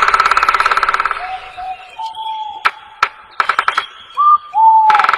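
Unidentified songbird calling: a fast, harsh rattling trill, then short whistled notes alternating with further rattles and two sharp clicks near the middle.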